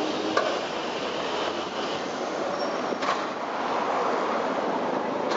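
Nagasaki Electric Tramway streetcar passing close by, rumbling along the track. There is a sharp click near the start and another about three seconds in, and a faint high wheel squeal in between.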